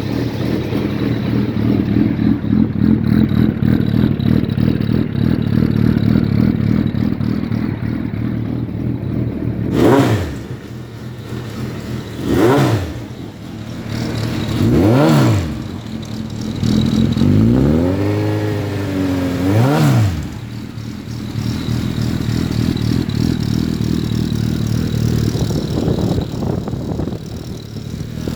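Suzuki Hayabusa 1300's inline-four engine idling, with three quick throttle blips about ten seconds in, then a longer rev that rises, dips and rises again before dropping back to idle.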